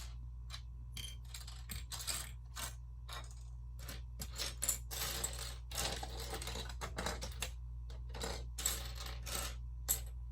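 Loose plastic Lego pieces clicking and clattering as they are sorted through by hand, with a longer rustling stretch about halfway through.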